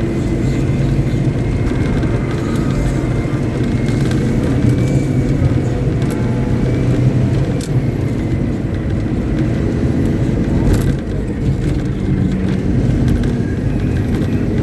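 Caterpillar 777D haul truck's 3508B V8 diesel engine running at a steady speed during a ground test.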